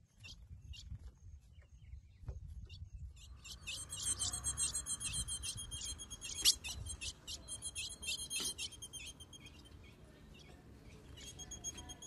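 Female ultramarine grosbeak (azulão) giving rapid, high-pitched twittering calls while soliciting mating. A few scattered chips come first, then the twittering starts about three seconds in, runs fast and dense, eases off and picks up again near the end.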